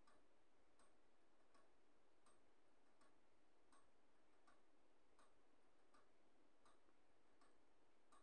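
Near silence with faint, evenly spaced ticking, about four ticks every three seconds, like a clock.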